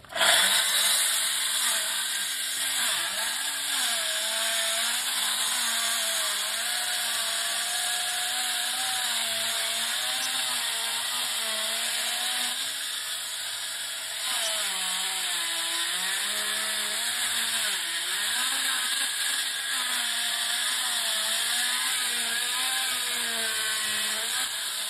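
Hydraulic diamond-blade concrete saw cutting into a concrete foundation wall: a steady hissing whine of the blade in the concrete, its pitch wavering up and down as the cut goes on, with a brief dip about halfway through.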